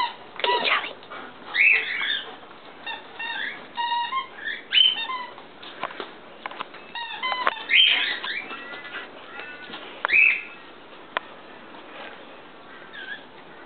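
A dog giving a string of short, high-pitched yelps and whines, each rising and falling, with a few sharp clicks between them.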